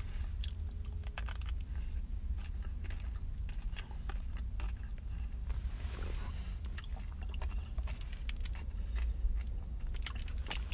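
Mouth sounds of biting and chewing a chocolate-coated ice cream bar with crunchy bits in the coating: a scatter of small crisp clicks and crunches. A steady low rumble runs underneath.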